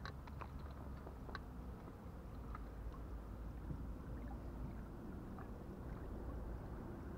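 Steady wind rumble on the microphone, with small waves lapping at the shore. A few faint short ticks come in the first second and a half.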